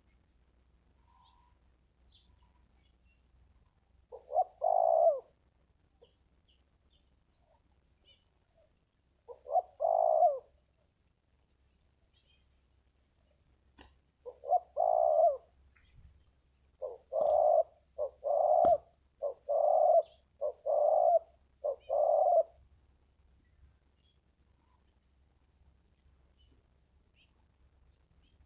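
Spotted dove cooing: single coo phrases a few seconds apart, then a quicker run of about six coos in a row. A single sharp click sounds during the run.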